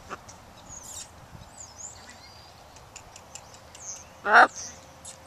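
A macaw gives one short, loud, harsh squawk a little over four seconds in, close to the microphone.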